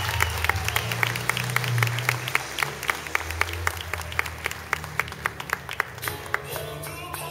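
Audience clapping along in time to dance music with a steady bass, about three to four claps a second; the clapping thins out near the end.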